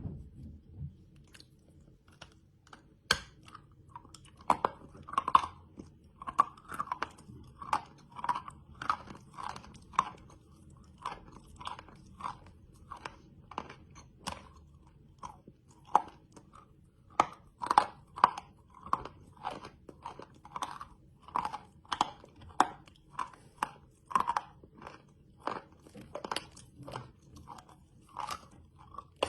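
Close-miked bite and chewing of chalk candy: one sharp snap about three seconds in, then steady crisp crunches, roughly two a second.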